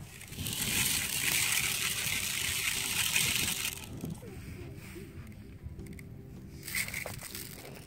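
Sand pouring through the funnel of a plastic sand and water wheel toy and spilling over its turning paddle wheel: a loud, even hiss for about three and a half seconds that then dies away.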